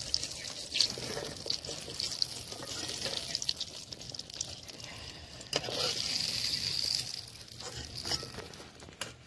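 Eggplant slices frying in hot oil in a wok, a crackling sizzle that swells for a second or so past the middle. A few sharp clicks and scrapes of a metal spatula against the wok and a steel plate as the fried slices are lifted out.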